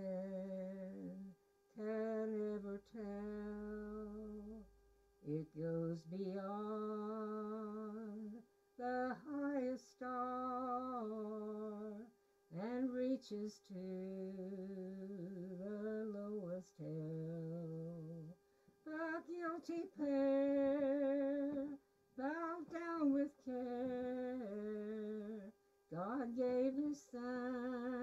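An elderly woman singing a hymn to piano accompaniment, in sung phrases with short pauses between them.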